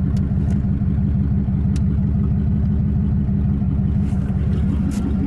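1991 Camaro RS's 305 V8 engine running steadily and rough. The owner puts the rough running down to bad injectors and a blown head gasket.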